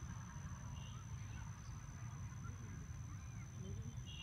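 Open-field ambience: a steady low rumble with a thin, steady high whine, a couple of brief faint chirps about a second in and near the end, and faint distant calls.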